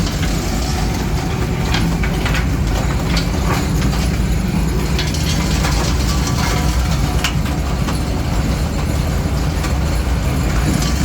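4R roller grinding mill running under load with dolomite: a loud, steady low rumble with irregular clattering knocks and rattles on top.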